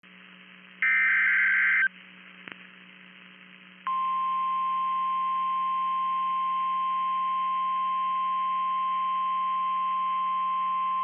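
A one-second burst of warbling EAS/SAME data-header tones about a second in, then a click. From about four seconds in comes the NOAA Weather Radio 1050 Hz warning alarm: one steady high tone, held past the end, which signals that a warning is about to be read. A steady low hum lies underneath.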